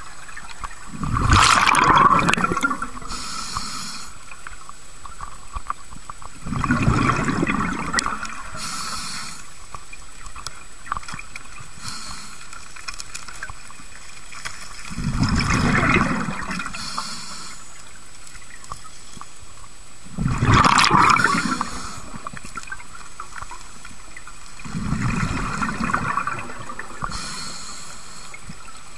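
Scuba diver breathing through a regulator underwater: five bubbling exhalations several seconds apart, with a fainter hiss from the regulator between them.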